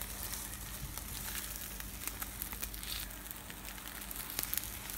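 Folded egg omelette frying in a nonstick pan, sizzling steadily with scattered small crackles.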